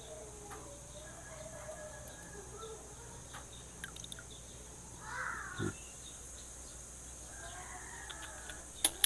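Faint chickens clucking and a rooster crowing, with a sharp click near the end.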